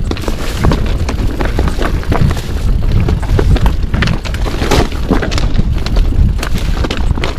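Commencal Meta TR 29 mountain bike ridden down a rough trail: a constant, irregular clatter of knocks and rattles from the tyres, chain and suspension over the ground, with wind rumbling on the action-camera microphone.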